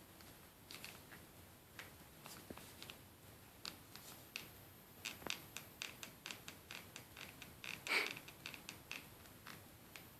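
Plastic body of a Xiaomi Redmi Note 2 smartphone creaking and crackling as it is squeezed and flexed in the hand: a run of small clicks that thickens in the second half, with one louder crack about eight seconds in. The creaking is a known build flaw of this phone.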